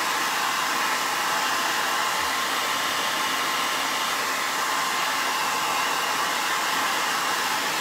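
Handheld hair dryer running steadily: a constant rush of air with a faint steady motor whine.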